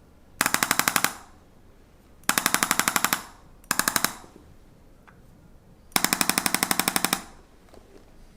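Handheld chiropractic percussion adjusting instrument firing in four short bursts of rapid, evenly spaced taps, about a dozen a second, each burst lasting under a second to just over a second.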